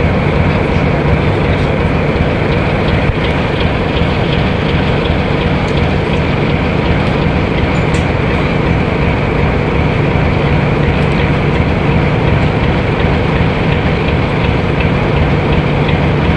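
Diesel locomotive engine running steadily and loudly, heard close up.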